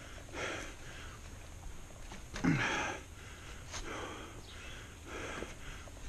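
A mountain biker breathing hard while riding, with heavy breaths about every second and a half. One louder breath, about two and a half seconds in, is voiced and drops in pitch like a grunt.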